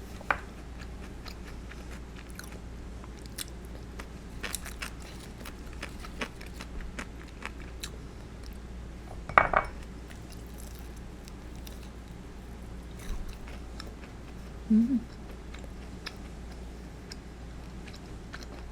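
Close-up chewing of crispy karaage (Japanese fried chicken), with scattered small crunches and mouth clicks and one louder crunch about halfway through. A brief closed-mouth hum near the end.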